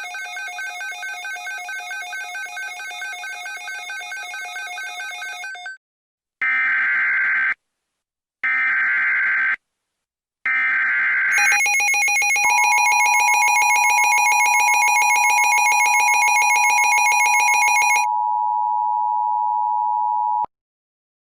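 A fast-pulsing electronic ringing tone comes first. Then three short bursts of EAS digital header data tones sound, evenly spaced. The EAS two-tone attention signal follows, overlaid for its first several seconds by a harsh buzzing alarm tone, and cuts off abruptly about a second before the end.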